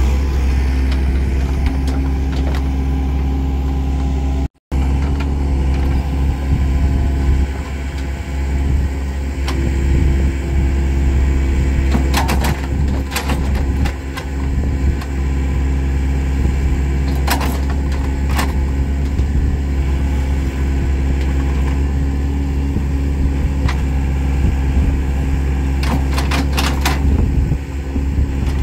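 Diesel engine of a Doosan Solar 55V mini excavator running steadily as it digs wet mud, with a few sharp knocks in pairs about twelve, seventeen and twenty-six seconds in. The sound cuts out for an instant about four and a half seconds in.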